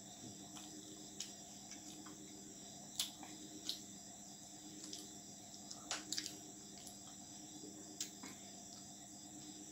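Hand-eating sounds: a few short, sharp clicks and smacks as roti is torn by hand on a plate and chewed. Under them is a steady high chirring of crickets and a low hum.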